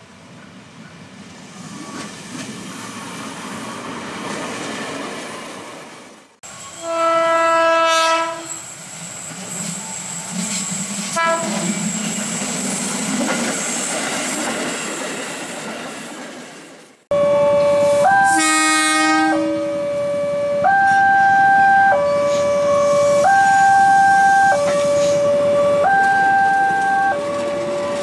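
Electric commuter trains (KRL Commuter Line) approaching and passing with wheel rumble. One train sounds a single horn blast of about a second and a half, then a short toot. After a cut, another sounds a horn blast, and a two-note signal then alternates between a lower and a higher note about every second and a half.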